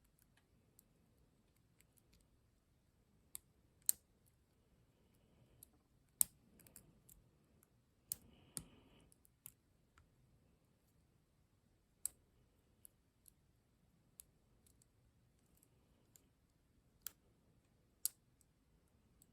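Sparse, irregular sharp clicks from a pick working inside a Ruko ASSA Abloy 2 lock, with a brief rustle a little before halfway through.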